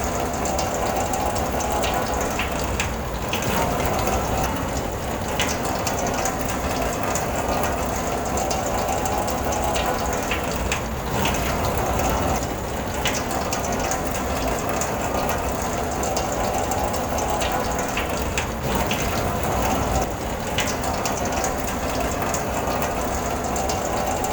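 Rain falling on a car's roof and windows, heard from inside the car: a steady, dense patter of drops with an occasional louder tick.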